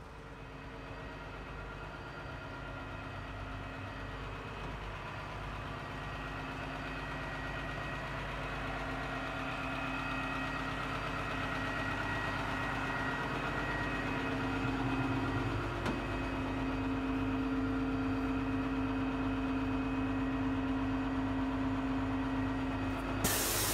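Forklift engine idling steadily, slowly growing louder.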